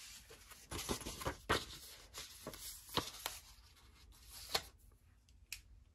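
Paper cards and envelopes being handled and slid together with their packaging: light rustling of card stock with several short crinkles and taps, the sharpest about three seconds in.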